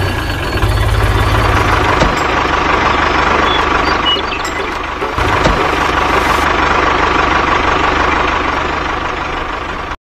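Tractor engine running steadily at low revs, with an even low beat.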